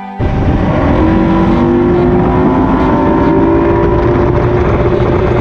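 2004 Mercury 150 EFI V6 two-stroke outboard running at speed, pushing a Triton TR-186 bass boat across a lake, with heavy wind and water rush over a steady engine tone. It cuts in suddenly right at the start.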